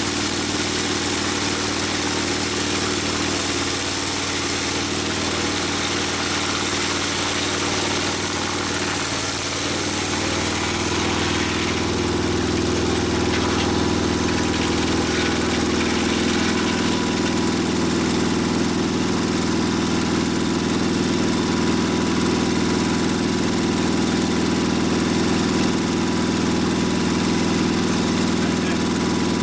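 Portable sawmill's engine running steadily. About ten seconds in its sound changes, growing deeper and fuller while a high hiss drops away.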